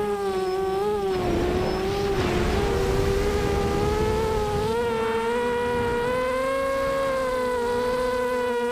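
Brushless motors of a QAV250 FPV quadcopter spinning 5-inch props, a steady high buzzing whine with many overtones. Its pitch sags a little and then rises and wavers as the throttle changes. A rushing noise rides over it from about a second in until nearly five seconds.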